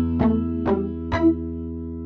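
Instrumental Malay pop-rock music near its close: three plucked guitar notes, about half a second apart, over a held low chord that keeps ringing.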